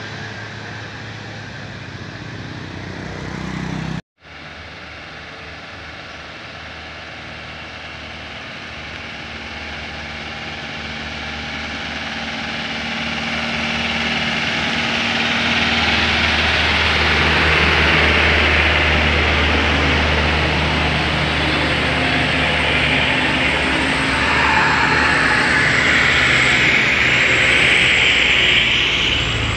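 A bus engine running and drawing nearer, growing steadily louder along with a rising hiss, after the sound cuts out abruptly for a moment about four seconds in.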